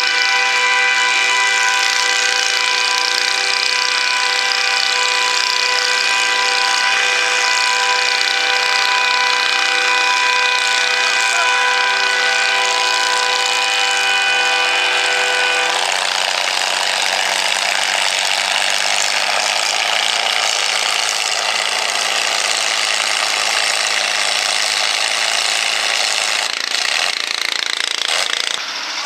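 Antique Farmall tractor's engine running flat out under load while pulling a weight-transfer sled: a loud, steady pitched note. About halfway through the steady note drops away, leaving a rougher, noisier sound as the pull ends.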